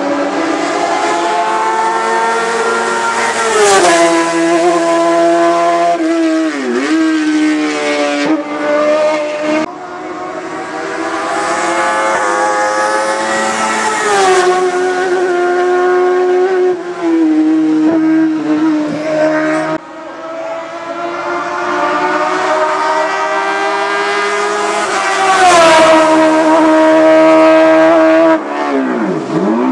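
Hillclimb race cars at full throttle, engine notes climbing and then dropping back at each gear change. Around 7 s and again near the end a car passes close by and its pitch swoops sharply down. The sound breaks off abruptly near 10 s and 20 s, where one car gives way to the next.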